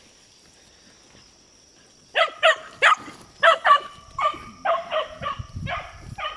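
Hunting dogs barking in quick succession, about three barks a second, starting about two seconds in: the dogs giving tongue as they chase game.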